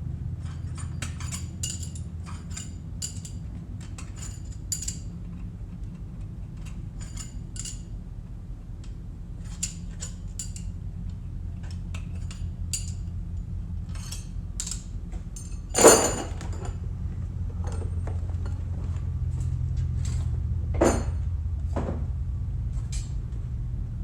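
Tools and metal engine parts clinking and clattering during the teardown of a 13B rotary engine, with many light clinks, a louder ringing metal clank about two-thirds of the way through and two smaller knocks soon after, over a steady low hum.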